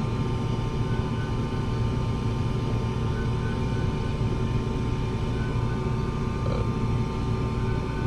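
Steady low machinery hum with several faint steady higher tones over it, and a faint short tone repeating every second or two.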